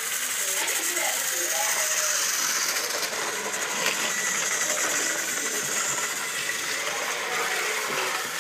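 Battery-powered Thomas & Friends toy trains running on plastic track: a steady whirr with fast clicking from their small motors and gears.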